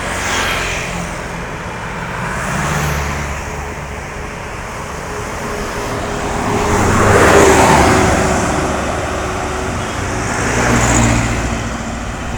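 Heavy road traffic with buses passing close by, engines droning and tyres hissing. Three vehicles go past, the loudest about halfway through.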